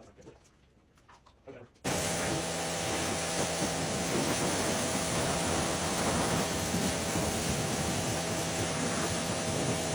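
A motor-driven machine switched on suddenly about two seconds in, giving a loud steady hiss with a steady hum underneath. Before it, only faint clicks of handling.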